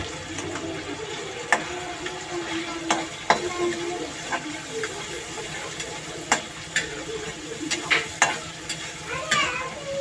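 Flat metal spatula stirring a sizzling spiced masala in a metal kadai, with about ten sharp, irregular scrapes and knocks of metal on metal over a steady frying sizzle.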